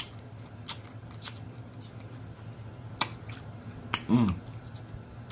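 Close-up eating sounds of boiled blue crab: scattered sharp clicks and smacks as the crab is picked apart by hand and sucked from the shell. A brief hummed voice sound just after four seconds in.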